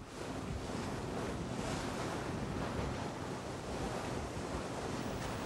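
Steady wash of wind and small waves on the open sea.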